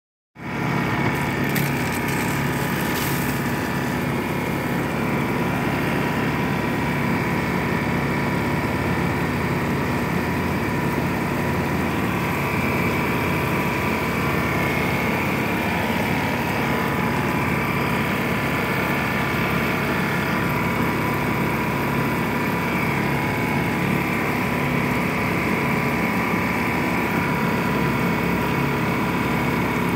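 Garden hose spray nozzle jetting water onto shrubbery, a steady hiss of spray, together with a steady motor-like hum. Both start about half a second in.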